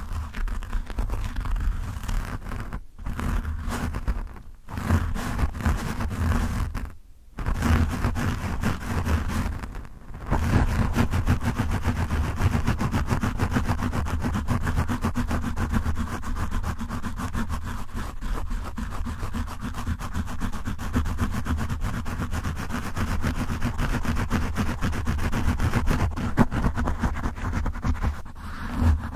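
Fingertips rapidly scratching a foam microphone windscreen, heard close on the mic as rough scratching with a deep rumble. The strokes stop briefly a few times in the first ten seconds, then run on without a break.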